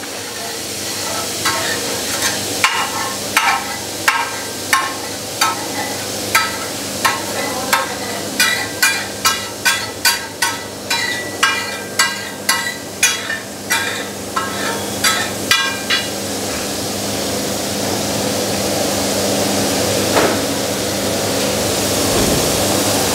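Metal spatula striking and scraping on a large iron tawa in the rhythmic 'tak tak' of tawa stir-frying, about two strikes a second, over steady sizzling of desi ghee. The strikes stop about two-thirds of the way through, leaving only the sizzle, which grows slightly louder.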